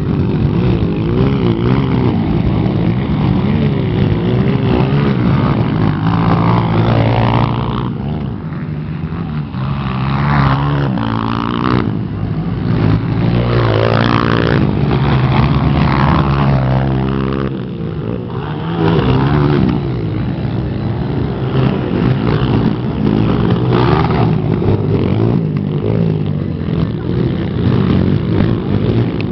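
Motocross dirt bike engines racing, revving up and down in pitch as the bikes accelerate and pass.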